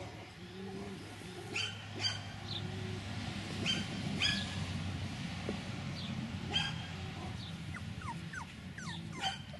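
Young beagle puppies giving short, high-pitched yips and whimpers, a handful spread out, with a quick run of falling whines near the end.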